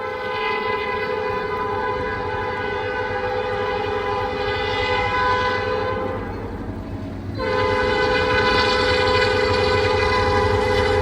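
Diesel locomotive air horn sounding a chord in two long blasts: one of about six seconds, then after a short break a second that runs on. A low train rumble grows beneath it.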